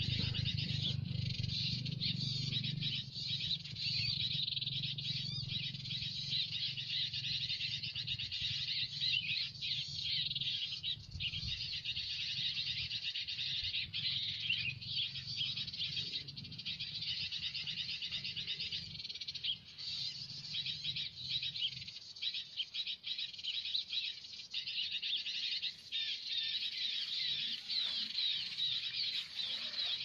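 Dense, continuous high-pitched twittering of small birds, with a low steady hum under it that fades out about two-thirds of the way through.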